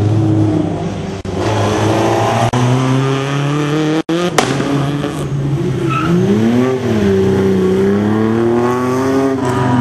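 Rally car engines driven hard round a tight corner, revving up through the gears, the pitch rising, dropping back and climbing again. The sound cuts out for an instant about four seconds in.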